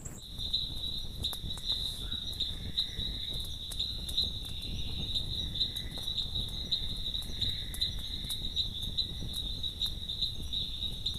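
Crickets trilling in a steady chorus on one high, continuous pulsing note, with faint scattered ticks.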